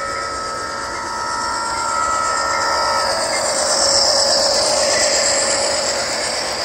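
LokSound sound-decoder horn on an HO scale Kato Santa Fe Dash 9-44CW, a chord of several steady tones held and cut off about three seconds in. The model diesels then pass closest, with a rushing noise from the running train that is loudest about four seconds in.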